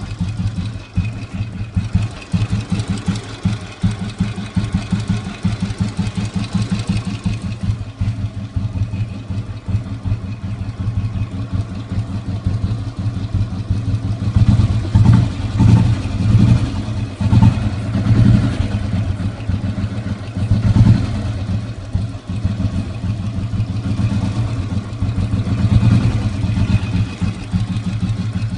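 1969 Enfield Bullet's single-cylinder four-stroke engine idling with its steady, even thump. The throttle is blipped several times near the middle and again a little later, each time rising briefly above the idle.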